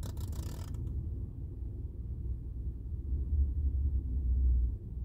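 Low, steady rumble of a car heard from inside the cabin: engine and road noise while driving. A short hiss comes in the first second.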